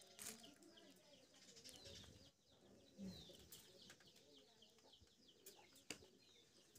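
Faint, rapid peeping of hatching Japanese quail chicks: many short, falling high chirps, with a few sharp clicks.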